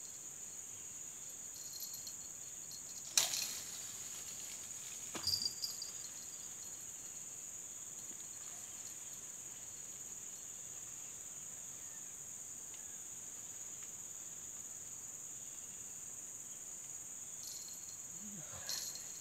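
Steady high-pitched chorus of insects. A sharp click about three seconds in is the loudest sound, with a few softer knocks around five seconds and again near the end.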